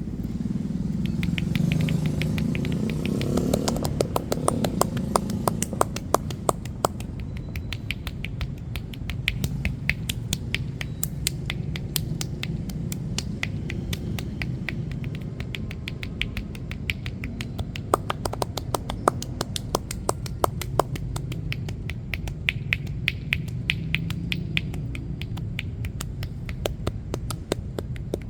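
Rapid percussive strikes of a masseur's hands on a client's body during a massage, quick runs of sharp slaps and claps, several a second, over a steady low rumble.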